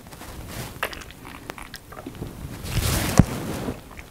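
A can of hard seltzer being shotgunned, with small clicks and gulping. A sharp crack comes about three seconds in, in a brief rush of noise, as the can is opened.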